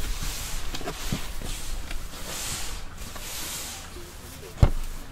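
Hands working twisted-doughnut dough on a board: a rough rubbing hiss in uneven pulses, with one loud thud near the end as the dough hits the board.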